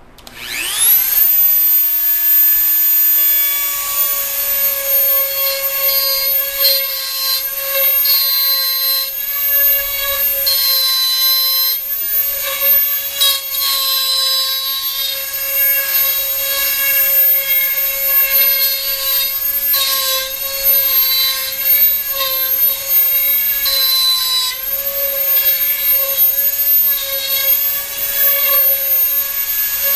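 Dremel rotary tool in a router base spins up right at the start, then runs steadily with a high whine as its bit routes a circular rosette channel into a concert ukulele's wooden soundboard. The pitch wavers slightly now and then as the bit takes load.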